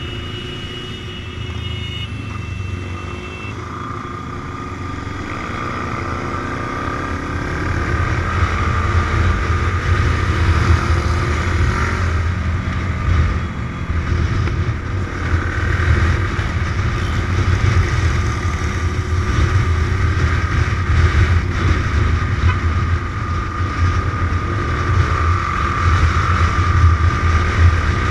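Kawasaki motorcycle engine running on the move with wind noise, other motorcycles riding alongside. It speeds up and gets louder over the first several seconds, then holds at a steady cruise.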